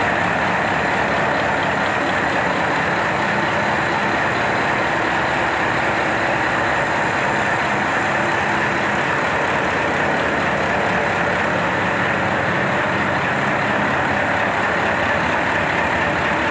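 Mitsubishi 8DC11 V8 diesel engine running steadily.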